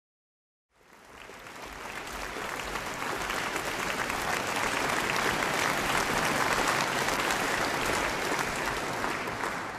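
Audience applauding. It comes in about a second in, builds over a couple of seconds to a steady dense clapping, and begins to die away at the very end.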